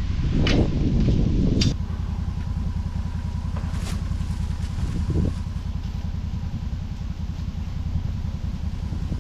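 Two hammer blows on the wooden frame in the first two seconds, over a Can-Am side-by-side UTV's engine idling with a steady low, fast-pulsing rumble that carries on alone after the hammering stops.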